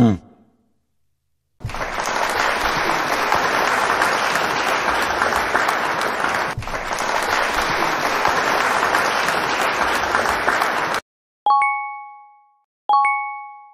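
A group of people applauding for about nine seconds. Then a bright bell-like chime rings twice, each ring fading away.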